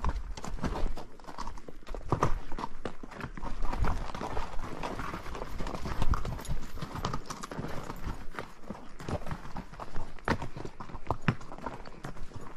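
A ridden horse's hooves clip-clopping on trail ground, an uneven run of sharp knocks.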